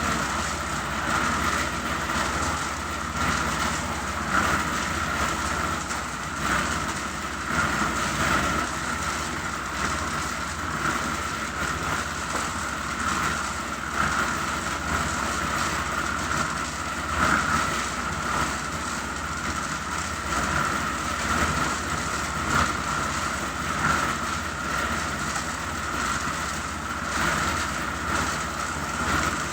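Machinery running steadily during a concrete floor pour, a continuous rough drone that swells and eases every second or two.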